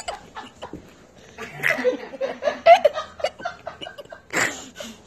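Laughter in a run of short repeated bursts, with a louder burst near the end.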